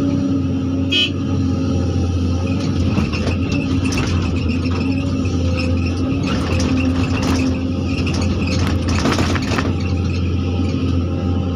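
Zoomlion excavator's diesel engine running steadily, heard from the cab, while the steel bucket scrapes and rattles through gravel and rock in several bursts. A brief high squeak about a second in.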